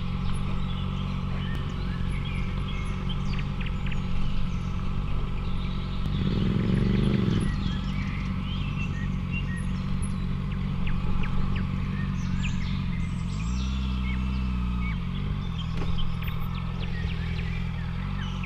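Honda CBR650F sport bike's inline-four engine running at low revs while ridden slowly along a dirt trail. Its pitch swells up and back about six seconds in with a burst of throttle, and dips and recovers again around thirteen to fifteen seconds.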